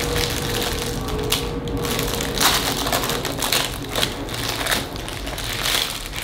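Plastic cupcake packaging crinkling and crackling in irregular bursts as it is handled and pried open.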